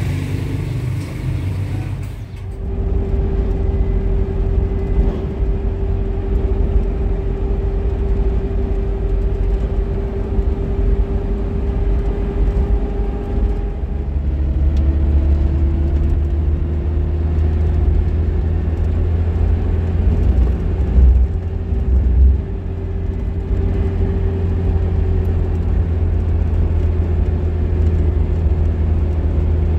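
A motor vehicle's engine running steadily with a heavy low rumble. About 14 seconds in, the engine note drops and then slowly climbs again.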